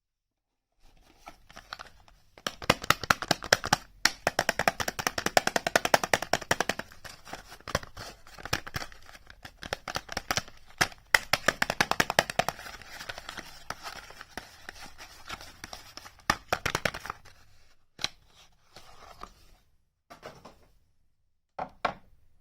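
Packaging being unwrapped and torn open by hand: a long run of rapid, sharp crackling. Near the end it thins to a few scattered clicks.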